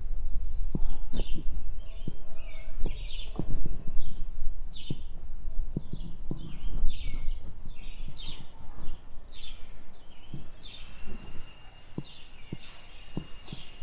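A songbird chirping over and over, short falling chirps about one or two a second, over a steady low rumble with scattered sharp clicks. Near the end a steady high tone comes in and holds for a few seconds.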